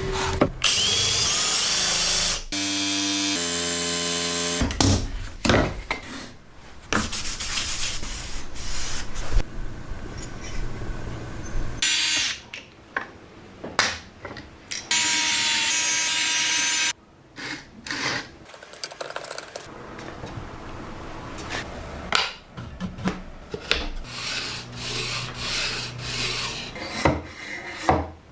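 Small trim router working wood, in a series of short clips that start and stop abruptly: the motor's high whine and the bit cutting and rubbing against the wood.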